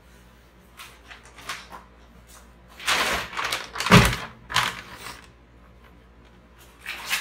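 Groceries being rummaged through and lifted out: a few light taps, a rustle about three seconds in, then a solid knock about four seconds in, with a couple more clicks near the end.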